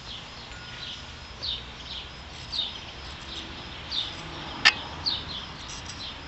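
A bird repeating a short, high, downward-sweeping chirp about once a second. A single sharp click about two-thirds of the way through.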